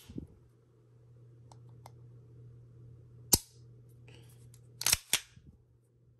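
Sharp metal clicks from a custom Infinity pistol's action being worked by hand: faint ticks about one and a half seconds in, one loud click a little past three seconds, and a quick pair just before five seconds.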